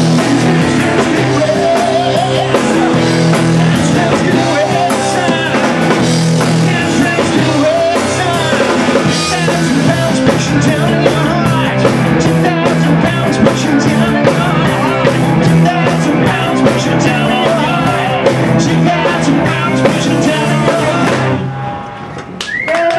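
Live rock band playing: electric guitars, drum kit and a singer. The song stops near the end.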